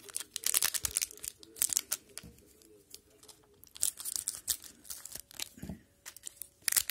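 Wrapper of a 2021-22 Upper Deck Parkhurst hockey card pack crinkling and tearing as it is opened by hand, in several short bursts of rustling.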